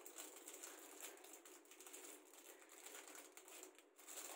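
Faint crinkling and rustling of a thin plastic cheese-slice wrapper being handled, over quiet room tone, a little louder near the end.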